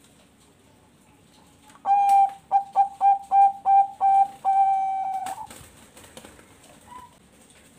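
Bangkok perkutut (zebra dove) cooing one full song phrase: a longer opening note, a quick run of short clipped notes, then a long held final note. It is a clear, fairly high coo.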